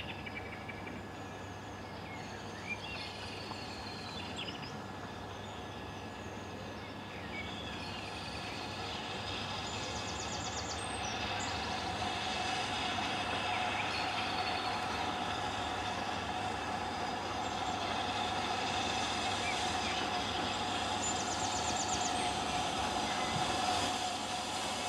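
BR Standard Class 5 4-6-0 steam locomotive No. 73082 'Camelot' and its train approaching along the line, the train sound growing steadily louder from about a third of the way in. Birds sing now and then.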